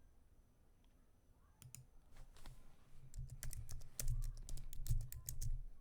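Typing on a computer keyboard: a few scattered keystrokes about one and a half seconds in, then a fast, dense run of keystrokes through the second half.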